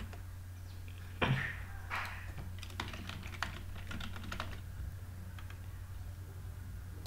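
Computer keyboard keys clicking in quick, irregular runs as a password is typed, with two louder short noises about a second in, over a steady low hum.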